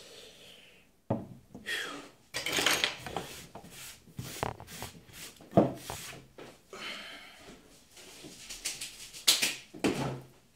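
Scattered knocks, clatter and rubbing from kitchen items being handled, including a plastic-lidded bottle set down on a wooden tabletop. There are sharp knocks about a second in, midway, and near the end.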